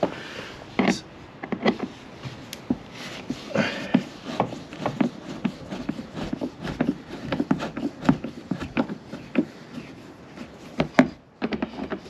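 A screwdriver working at the fasteners on the underside of a snowmobile's plastic clutch cover, making a string of irregular clicks, taps and scrapes.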